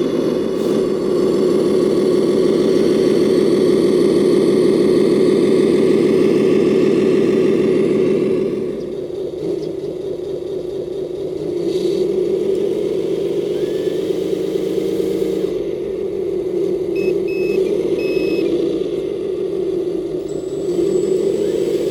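Radio-controlled 1/14-scale Mercedes-Benz 8x8 truck running loaded, a steady engine-like drone. It drops in level about eight seconds in, then rises and falls in pitch with the throttle.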